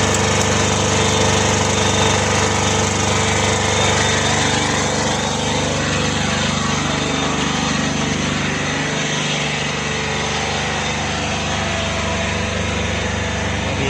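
Lister Petter silent-type diesel generator running steadily at a constant speed.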